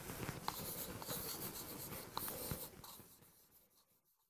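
Chalk scratching on a blackboard as words are written, with a few sharp taps. It fades out about three seconds in.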